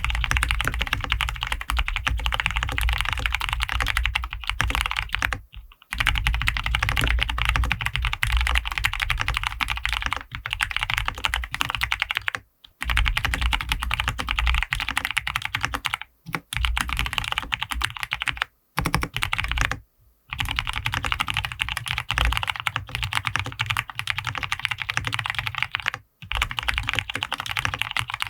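Fast, continuous typing on a NEO Ergo ergonomic-layout mechanical keyboard with Cherry MX Brown switches, a PP plate, full foam and PBT keycaps. Dense runs of keystrokes are broken by several short pauses.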